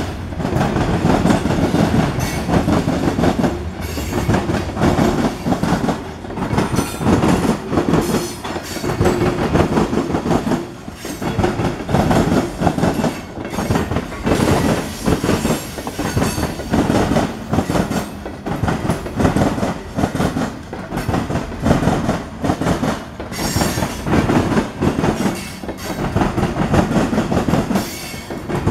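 Freight train cars, covered hoppers and open-top hoppers, rolling past close by, their steel wheels clattering over the rail joints in a loud, continuous clickety-clack that swells and dips every second or two as each set of wheels goes by.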